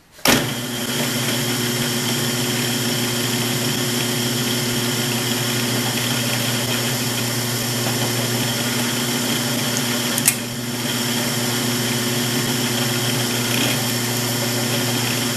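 Drill press switching on just after the start and running steadily while a 1/4-inch brad point bit bores a shallow stopped hole into a 1/8-inch plywood strip. A single sharp click about two-thirds of the way through.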